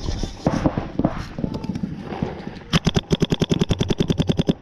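Paintball marker firing a rapid string of shots, about ten a second for nearly two seconds, starting a bit past halfway; scattered single pops and snaps before it.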